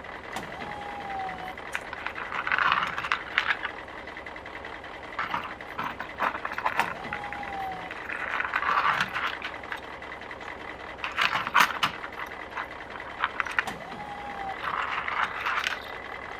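Small plastic toy pieces rattling and clicking against a toy construction truck's plastic parts as it is worked by hand to scoop and dump them, in repeated bouts a few seconds apart.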